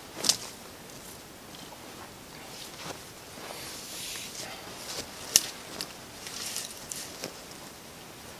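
Handling noise of a ridgeline cord being pulled out and wrapped around a tree trunk: soft rustling with scattered small clicks and knocks, the sharpest a little past five seconds in.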